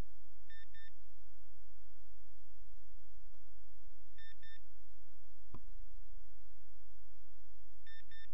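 Water-alarm receiver unit sounding its low-battery warning: a quick double beep, high-pitched, repeated about every three and a half seconds, three times in all. A single click about two-thirds of the way through, over a steady low hum.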